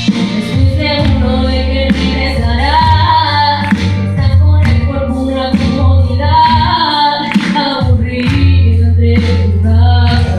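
Live band music rehearsed at a sound check: a singer holding sung lines over a strong bass and regular drum hits.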